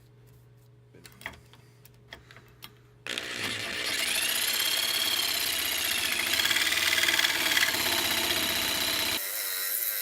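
A handful of small handling clicks, then about three seconds in a variable-orbit jigsaw with a metal-cutting blade starts and saws into inch-thick steel. The motor runs loudly under a high squeal from the blade on the steel, rising and falling in pitch. Near the end the sound changes abruptly as its low part drops away.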